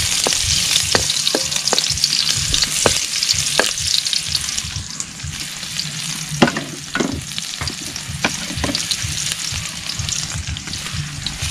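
Food sautéing in hot cooking oil in a pan: a steady sizzle, with a cooking utensil knocking and scraping against the pan as it is stirred. The sizzle eases a little about halfway through.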